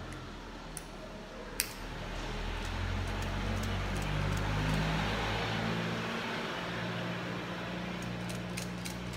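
Steady low mechanical hum of a motor, swelling toward the middle and shifting about five and a half seconds in, with a few sharp clicks of a hand tool working a network cable, the loudest about one and a half seconds in and a cluster near the end.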